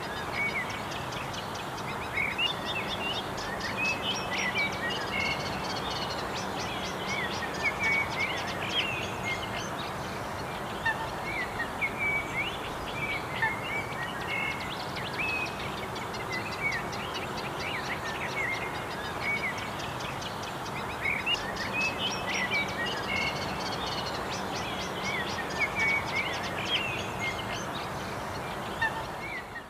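Many birds chirping and calling, short quick calls in loose clusters, over a steady background hiss.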